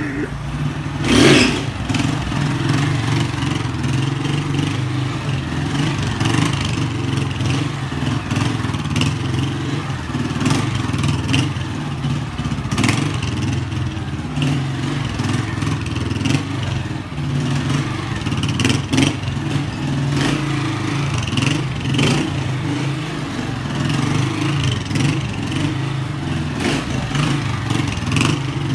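Small street motorcycle engine running and revving as it is ridden in wheelies, the throttle rising and falling, with a louder rev about a second in and scattered sharp clacks.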